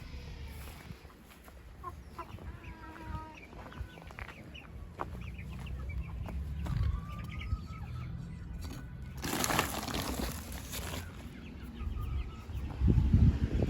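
Chickens clucking in short scattered calls over a low rumble. A rush of noise lasting under two seconds comes about two-thirds of the way through, and a louder low thudding comes near the end.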